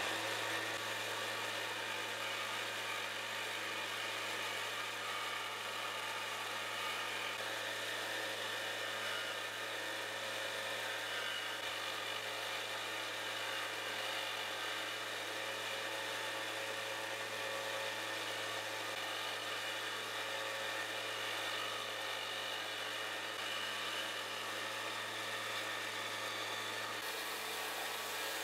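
A small electric power tool's motor running steadily with a continuous whir; the sound shifts slightly near the end.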